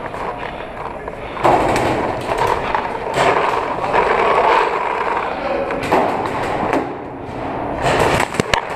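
Rapid paintball marker fire mixed with the clatter of a player running and moving, growing loud about a second and a half in, with a quick cluster of sharp cracks near the end.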